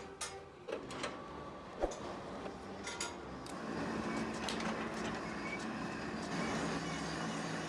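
Pillar drill press drilling bolt holes in a cast truck brake drum through a drill jig: a few sharp metallic clinks early, then a steady motor hum and cutting noise that grows louder about halfway through.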